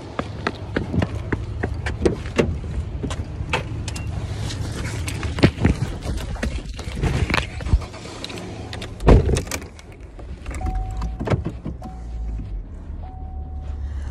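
Rustling and knocks from a phone being carried and jostled while getting into a car, with a heavy thump about nine seconds in. From about ten and a half seconds, a car's warning chime beeps steadily, about once a second.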